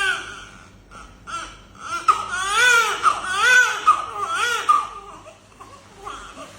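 Newborn baby crying in a string of short wails that each rise and fall in pitch, dying down near the end.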